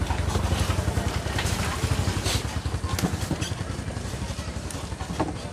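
A small brush scraping in short strokes against the rubber inside a motorcycle tyre, over a steady low rumble that eases off after about four seconds.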